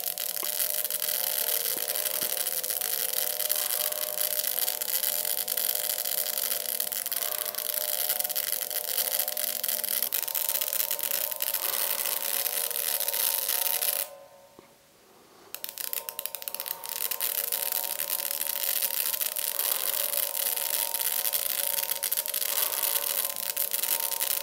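Spark detector crackling: sparks snapping irregularly between its thin high-voltage wires and the metal plate as an americium-241 alpha source is held just above them, over a steady hiss. The sound cuts out for a moment just past the middle.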